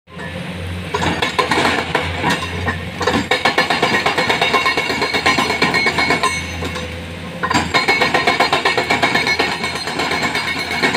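Hydraulic rock breaker on a Komatsu excavator hammering a rock face in rapid, fast-repeating blows. It works in bursts, easing off briefly about three seconds in and again for about a second past the six-second mark, over a steady low diesel engine hum.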